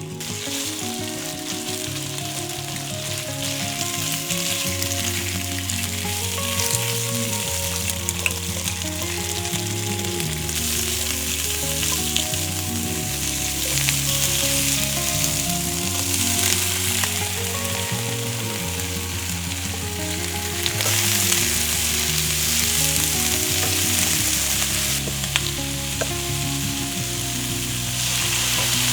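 Food sizzling and frying in hot oil in a pan as it is stir-fried, with a few sharp taps of the spatula, over background music with a slowly changing bass line. The sizzle grows louder for a while about two-thirds of the way through.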